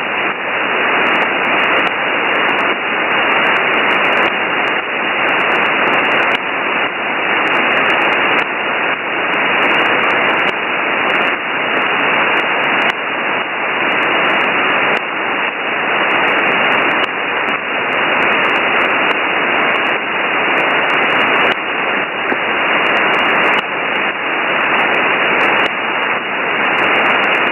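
Winradio Excalibur Pro shortwave receiver in upper-sideband mode on the idle 8918 kHz aeronautical HF channel, giving out a steady hiss of band noise with frequent crackles of static and no transmission.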